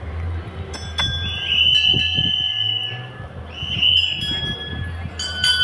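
Temple bells being rung: one strike with a ringing tone about a second in, then a quick run of strikes ringing on near the end. A shrill high steady tone sounds twice in between, over a steady low hum.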